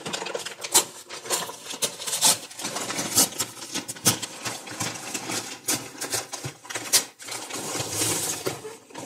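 Paper mailer bag crinkling and rustling as it is handled and turned over, with irregular sharp crackles and taps throughout.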